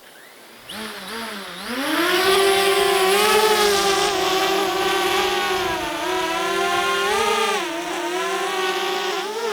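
Camera drone's propellers whining, spinning up with a rising pitch about two seconds in, then running with small shifts in pitch as it flies.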